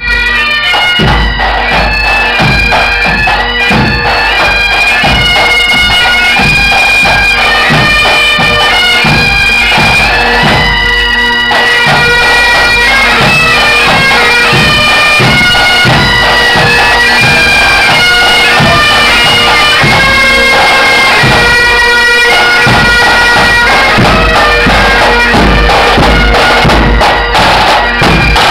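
Pipe band playing: bagpipes sounding a tune over their steady drone, with snare and bass drums beating a regular rhythm.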